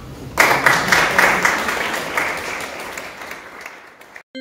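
Audience applauding, starting suddenly and slowly dying away. Near the end it cuts off and a chiming jingle begins.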